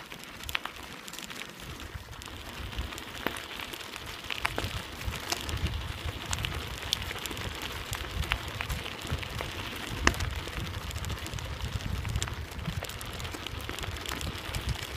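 Bicycle tyres rolling over a gravel track as the bike is towed by a running dog: a steady crackling crunch with scattered sharp ticks of stones, the loudest about ten seconds in. A low rumble joins about four seconds in.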